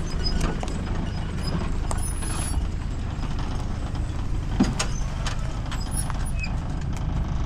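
Jeep Cherokee on the move over rough ground: a steady low engine and road rumble with frequent clicks and rattles, and one sharper knock about halfway through.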